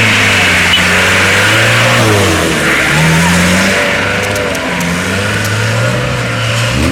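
Off-road race jeep engines running hard and revving, the pitch falling and rising several times as the throttle is worked, with a sharp climb in revs near the end.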